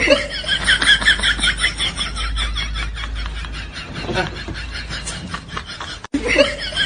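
A rapid, high-pitched snickering laugh, about four to five short pulses a second, broken off by an abrupt cut about six seconds in and then starting again.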